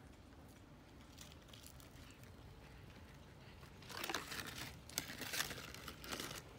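Crinkling and rustling, like plastic or dry material being handled, for about two and a half seconds starting about four seconds in, with a few sharp crackles in the middle.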